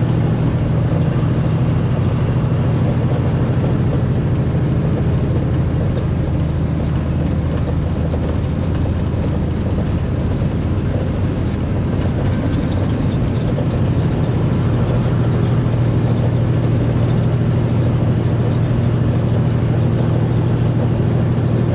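Semi truck's diesel engine droning steadily at highway cruise, heard from inside the cab, with road noise. A faint high whine sinks in pitch through the middle and rises back near the end.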